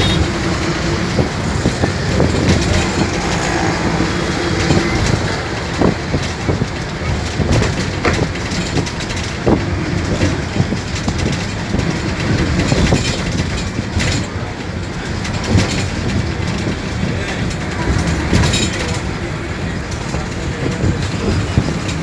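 Vehicle ride noise while travelling along a road: a steady rumble of engine, tyres and wind, with frequent rattles and knocks.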